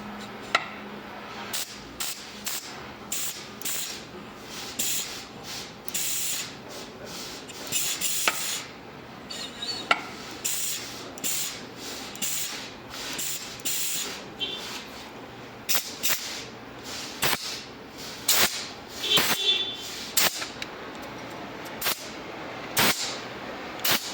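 Workshop repair sounds on a forklift hydraulic jack cylinder: irregular sharp metallic clicks and knocks, with short hissing bursts in between.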